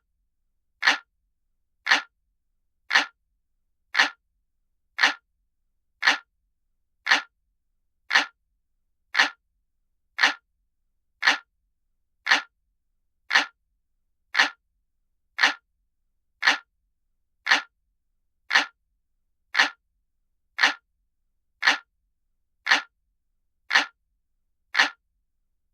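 Looped clock-ticking sound effect: a single sharp tick about once a second, with silence between ticks.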